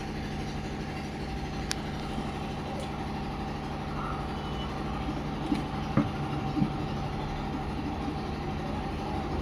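A steady mechanical drone like an idling engine, with a few light clicks and knocks of cables being handled, the loudest about six seconds in.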